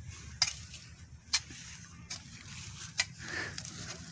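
Hand hoe chopping into grassy soil: four short, sharp strikes about a second apart, each with a brief scrape of blade through earth and grass.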